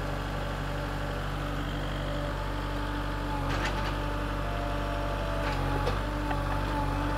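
Kubota L4060 tractor's diesel engine running steadily, with two short knocks about three and a half and five and a half seconds in.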